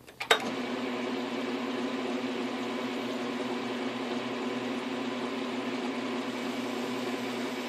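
South Bend 9-inch bench lathe started with a sharp click about a quarter second in, then running steadily at an even hum as it spins an aluminium pulley between centres.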